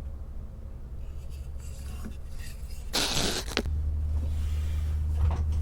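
A steady low machine hum, with a short scraping rustle about three seconds in, after which the hum becomes louder.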